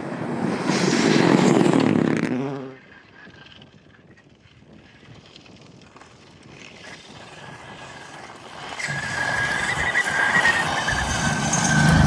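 Rally car engine passing at full throttle and dropping away sharply after nearly three seconds. A few quieter seconds follow, then another car's engine rises steadily from about three quarters of the way in.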